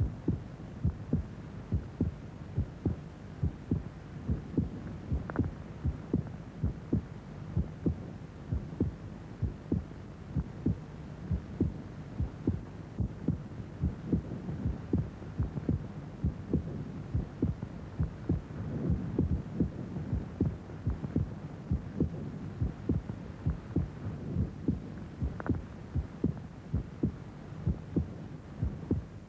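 A heartbeat thudding in a steady, regular rhythm over a low, even hum.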